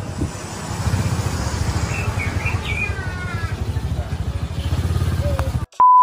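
Motorcycle engine idling with a steady low, fast-pulsing rumble. Near the end it cuts out abruptly and a loud, steady test-pattern beep takes over.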